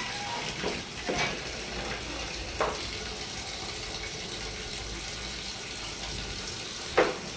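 Water from a wall tap pouring steadily into a plastic tub, with a few short sharp knocks over it, the loudest about seven seconds in.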